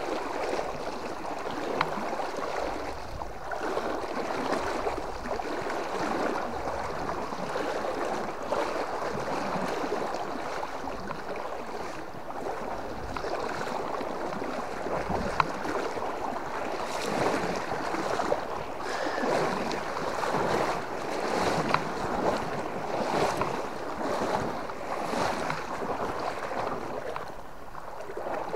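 Water swishing and splashing around legs wading across a flowing river, in regular surges that grow plainer in the second half, over the steady rush of the current.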